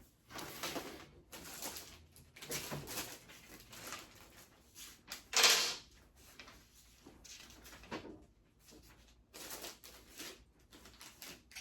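Flat-pack dresser parts being handled and fitted during assembly: a series of short scrapes and knocks, with one louder noise about five and a half seconds in.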